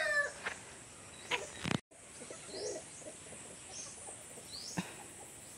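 A few faint, short rising bird chirps, with a few sharp clicks in between; the sound cuts out for an instant about two seconds in.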